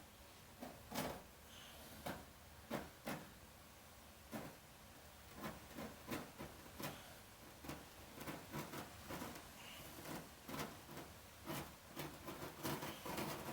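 Faint, irregular short taps and scraping knocks of hand tools working a berber carpet, coming closer together in the second half.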